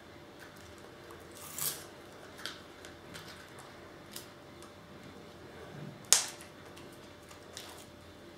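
Adhesive tape being pressed and smoothed by hand around a plastic Kinder Joy egg shell: faint rustles and light plastic ticks, with one sharp click about six seconds in.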